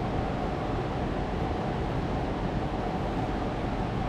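Steady background hum and rushing noise of a running fan, with a faint constant whine.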